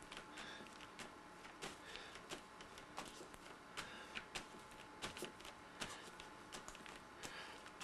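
Fingertips dabbing and tapping wet paint onto a canvas: quick irregular taps, two or three a second, over a faint steady hum.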